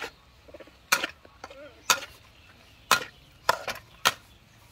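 Knife chopping food on a cutting board: six sharp chops, about a second apart, coming a little quicker near the end.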